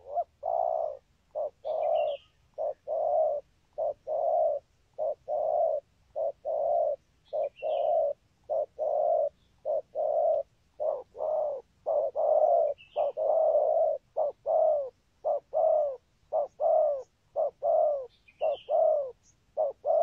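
Spotted dove cooing in a long run of short, low coos, about one and a half a second with uneven pauses, some notes dropping in pitch at the end. Faint high chirps from another small bird come about every five seconds.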